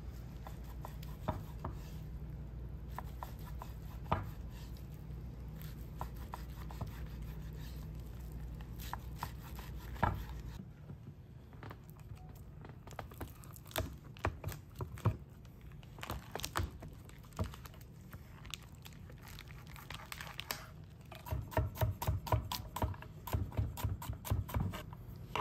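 Chef's knife on a wooden cutting board: slicing raw bacon, then cutting a wedge of Grana Padano through its plastic wrap, and near the end fast chopping of garlic cloves. A low steady hum runs underneath and stops about ten seconds in.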